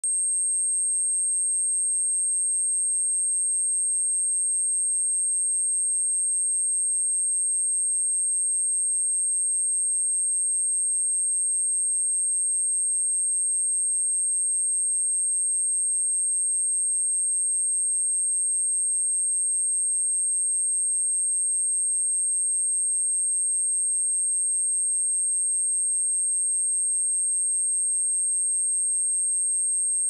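A pure 8461 Hz sine-wave test tone, a single very high-pitched steady whistle held unbroken at a constant level.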